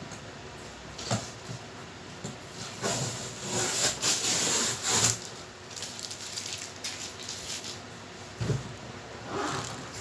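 Handling noises: rustling and scraping, as of packaging being handled, loudest from about three to five seconds in, with a few light knocks.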